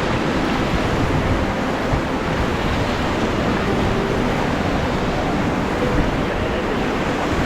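Steady rush of river water with wind buffeting the microphone.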